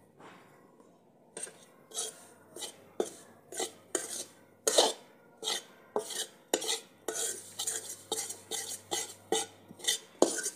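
A metal spoon stirring and scraping a dry, crumbly roasted chickpea-flour mix around a metal kadhai, with repeated scrapes and clinks of spoon on pan starting about a second in.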